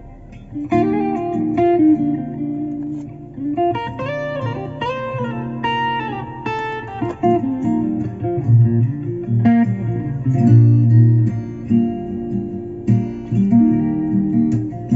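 Guitar music with plucked notes, played back through an Audio Circle three-way speaker system run by a Hertz H8 DSP for a sound check. A strong bass line comes in about eight seconds in.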